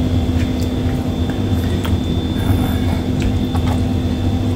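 Steady low machine hum with a faint high whine, with a few light clicks and taps from plastic basin and tub being handled.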